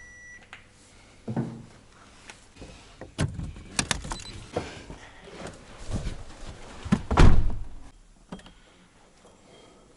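A string of clunks, knocks and rattles from a car door and from handling things at the car, the loudest about seven seconds in, with a short high beep at the very start.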